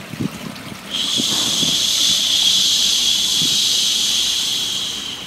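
A long 'shhh' shushing sound that starts suddenly about a second in and fades near the end, over a steady bed of running water.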